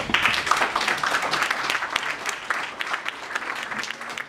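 Audience applauding: dense clapping that starts suddenly and thins out near the end.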